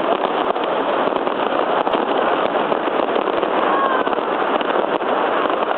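Dense, continuous crackling of many fireworks and firecrackers going off all around, with a faint falling whistle about four seconds in.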